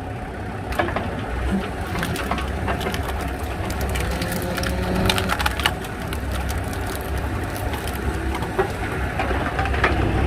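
Firewood cracking and splintering as a hydraulic log splitter forces through a log: a run of sharp cracks, thickest about halfway through, over the steady low hum of the engine driving the hydraulics.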